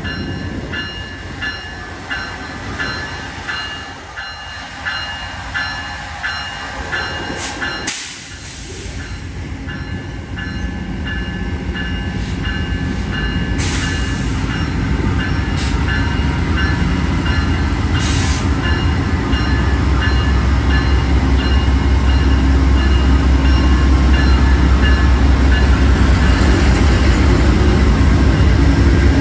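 Locomotive bell of an Amtrak GE Genesis P42DC ringing at about one and a half strokes a second, with several sharp air hisses. From about a third of the way in, the locomotive's V16 diesel sets up a low rumble that swells steadily as the train pulls away and passes.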